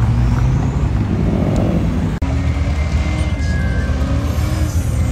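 Car engines and exhausts running loudly as cars cruise past on the street, broken by a sudden cut about two seconds in; after it an engine note rises slowly.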